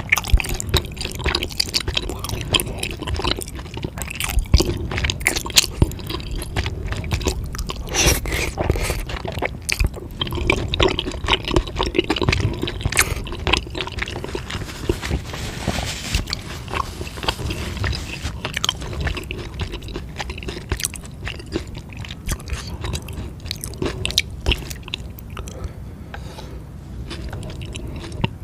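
Close-miked chewing and biting of spicy food, a dense run of short wet clicks and crunches with the odd scrape.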